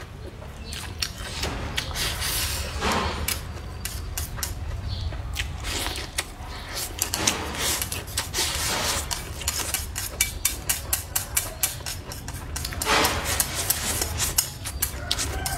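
Close-miked eating: wet chewing clicks of green chili peppers and rice, with chopsticks scraping and tapping a ceramic bowl as the last food is pushed into the mouth. Near the end come longer sips as broth is drunk straight from the bowl.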